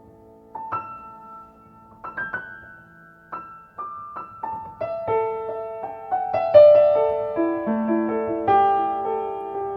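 Solo piano, tuned with C at 528 Hz, playing a slow, sparse melody of single ringing notes that grows denser, with overlapping notes, from about halfway through.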